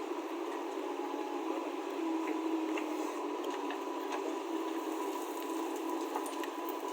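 Diesel engine of a JCB 3DX backhoe loader running steadily while it works, an even drone with a faint steady whine.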